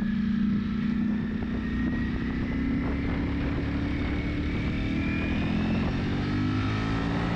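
2022 Ducati Panigale V4's V4 engine pulling hard in first gear, its pitch rising steadily as the bike accelerates, over steady wind and road rush.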